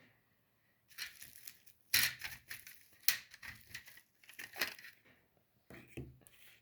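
Crinkling and rustling of packaging being handled, with a couple of sharp clicks and knocks, as 3D-printed plastic wall panels are sorted through.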